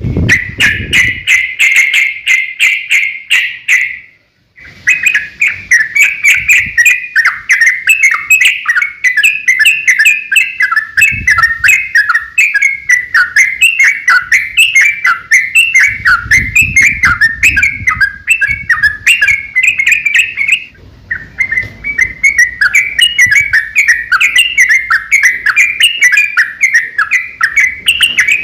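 Yellow-vented bulbul (trucukan) singing a long, rapid run of chattering notes in the vigorous 'ropel' style. The song breaks off briefly about four seconds in and again about two-thirds of the way through.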